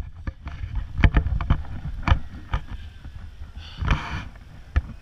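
Wind buffeting a pole-mounted action camera's microphone, with scattered knocks from handling and a brief rustling burst about four seconds in.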